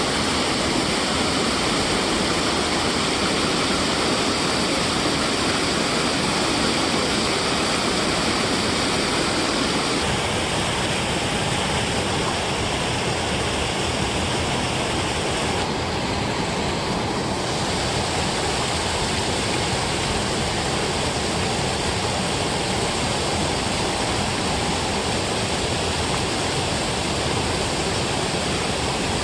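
Water pouring over a low concrete weir and churning in the pool below: a steady rushing.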